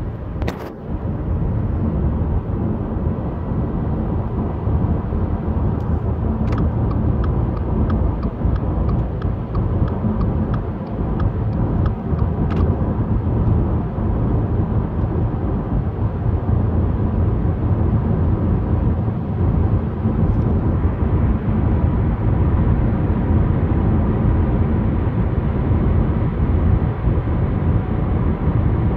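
Steady road and wind noise of a moving car, heard from inside the car, with a faint steady whine above it.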